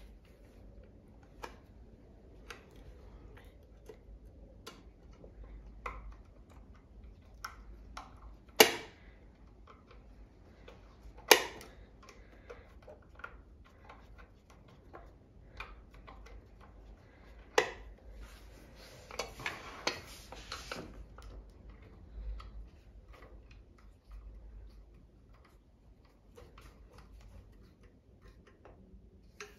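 Screwdriver clicking and tapping against screws and the plastic cover of a sewing machine as the cover is screwed on, with scattered small ticks, three sharper knocks and a short scraping stretch about two-thirds of the way through.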